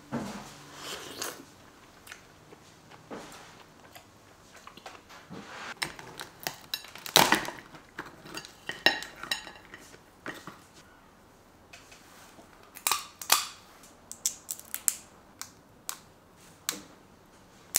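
Crab shells being cracked and broken apart by hand: irregular sharp cracks and clicks, the loudest a little past seven seconds in, with a busier cluster again near the end.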